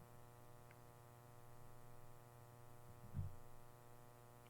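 Near silence: a faint steady electrical hum, with one soft low thump about three seconds in.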